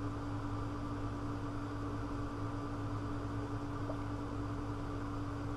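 Steady room hum and hiss with one constant low tone.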